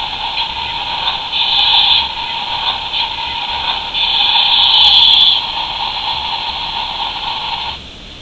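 Battery-powered toy excavator playing its electronic engine sound effect through a small, tinny speaker: a hissy machine noise with two louder surges, cutting off suddenly near the end.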